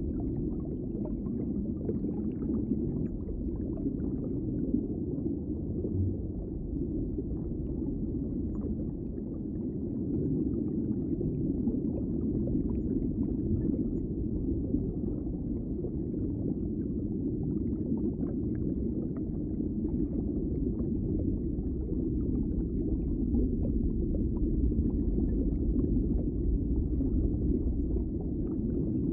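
Underwater ambience: a steady, muffled low rumble of water with faint clicks scattered through it.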